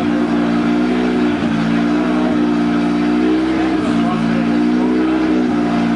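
Audi quattro's engine running hard at steady high revs on a four-corner hub dynamometer, its pitch dipping briefly and recovering about four times.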